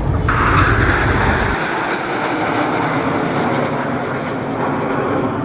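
Steady rushing noise of aircraft engines passing overhead. About a second and a half in, an edit cuts away a deep rumble, and what follows is the jet noise of the Patrouille Suisse's Northrop F-5E Tiger II fighters.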